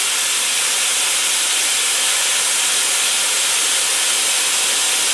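Pressure cooker of rice venting steam through its valve in a loud, steady hiss. The pressure is being let out quickly instead of waiting for the steam to die down on its own.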